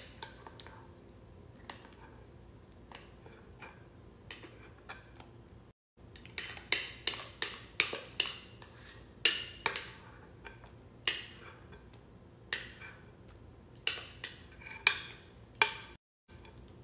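Metal spoon scraping and clinking against a glass mixing bowl as thick batter is scraped out. A few faint taps at first, then frequent sharp clinks from about six seconds in.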